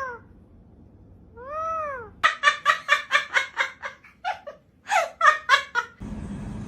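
A pet parrot calls: one drawn-out rising-then-falling note, then two runs of rapid cackling notes, about five a second.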